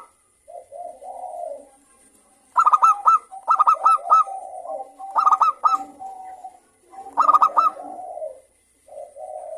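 Zebra dove (perkutut) singing: four phrases of quick, clipped high notes, each running on into a lower rolling coo. Softer coos come near the start and the end.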